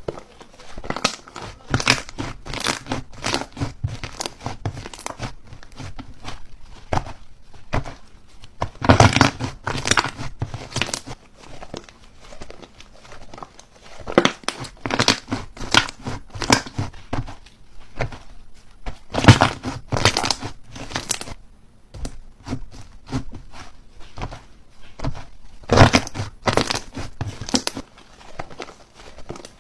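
Slime being squeezed and worked by hand, giving rapid crackling and popping clicks in repeated bunches, loudest about nine, nineteen and twenty-six seconds in.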